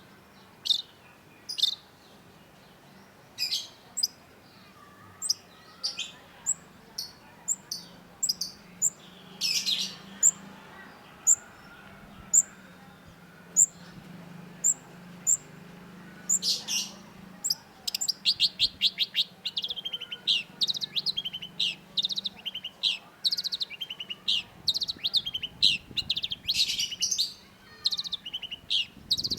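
Long-tailed shrike singing: scattered sharp, high notes and harsher calls, then, about halfway through, a fast run of chattering notes.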